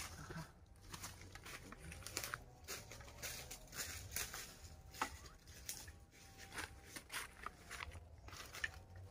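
Faint, irregular rustling and light clicks of people moving and handling things in dry leaf litter, over a low background rumble.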